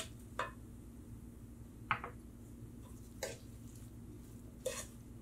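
Wooden spoon stirring chopped tomatoes in a nonstick frying pan, giving about five short, faint scrapes and knocks against the pan.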